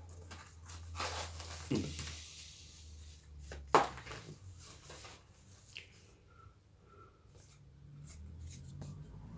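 Album packaging being handled and leafed through: rustling of paper and sleeves with a few sharp clicks, the loudest about four seconds in, over a low steady hum.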